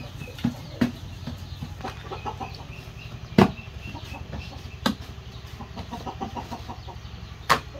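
Chickens clucking, with a few sharp knocks, the loudest about three and a half seconds in and again near the end, over a low steady hum.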